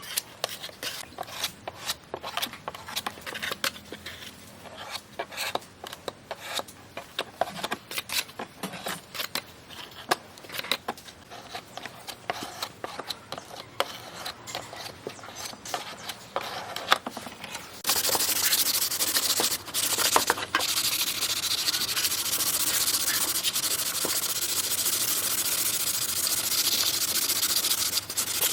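Sanding: uneven, stop-start rubbing and scraping strokes, then from about two-thirds of the way through a louder, steady sanding hiss without pause.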